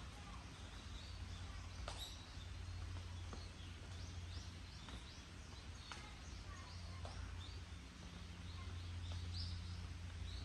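Small birds chirping, a quick series of short high calls that grows busier in the second half, over a steady low hum. A few sharp clicks stand out, about two seconds in and again near six and seven seconds.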